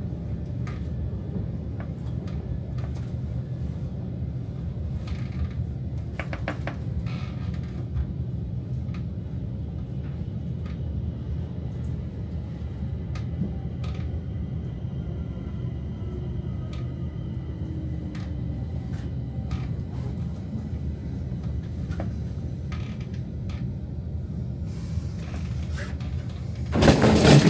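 Stockholm metro train running: a steady low rumble of wheels on rail with scattered clicks, a faint falling whine in the middle as it slows for the station, and a sudden loud burst near the end as it comes to a stop and the doors open.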